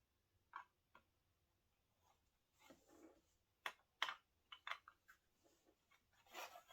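Faint scattered clicks and taps of plastic Lego bricks being handled and pressed into place, with a couple of soft rustles.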